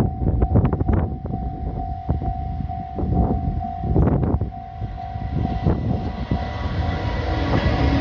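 JR Freight EF210 electric locomotive hauling a container freight train, approaching and drawing level, with rumble and sharp knocks. A steady high tone runs under it, and the locomotive's own tonal hum comes in and the sound grows louder near the end as it passes close.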